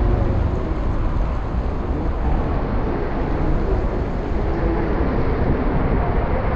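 Strong storm wind buffeting the microphone in the rain: a loud, steady low rumble under a hiss that holds throughout.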